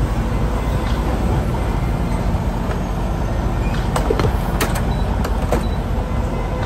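Steady low rumble of idling diesel truck engines, with a few light clicks and taps about four to five seconds in.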